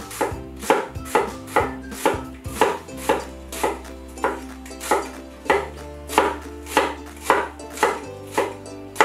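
Vegetable cleaver shredding green cabbage on a wooden cutting board: a steady rhythm of chops, about two to three strokes a second, each blade strike knocking on the board. Soft background music plays underneath.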